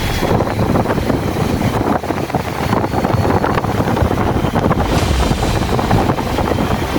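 Strong wind buffeting the microphone, giving a loud, unbroken rushing and rumbling roar.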